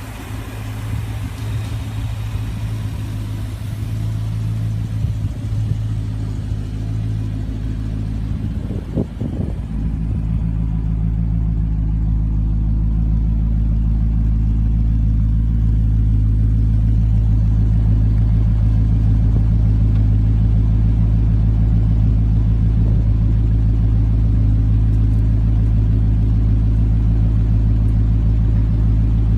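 Rover 3500S (P6B) 3.5-litre V8 engine running steadily. About nine seconds in there is a brief disturbance, then the engine note grows louder and deeper over several seconds and holds steady.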